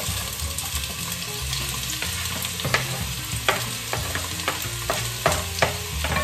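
Chopped onions sizzling as they go into hot olive oil in a pot. A wooden spoon scrapes them off a plastic cutting board, with several sharp knocks in the second half.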